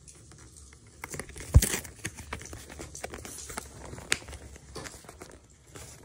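Cardboard box being handled and picked at along its perforated tear strip: scattered scrapes, rustles and clicks, with one loud thump about one and a half seconds in.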